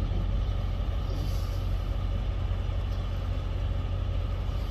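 Diesel semi-truck engines idling: a steady low rumble.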